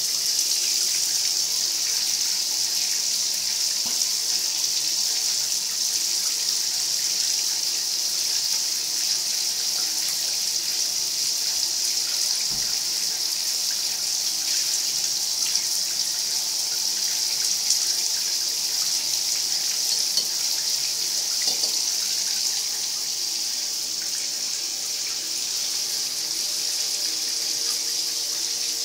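Bathtub faucet running steadily, a thin stream of water pouring from the spout into the tub.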